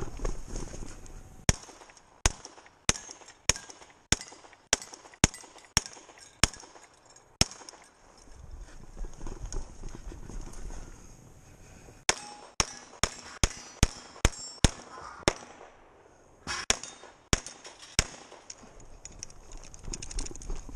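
Semi-automatic pistol shots: a string of about ten fired at a steady pace of under two a second, then a pause of about five seconds with the shooter's rustling movement, then a second, quicker string of about a dozen shots.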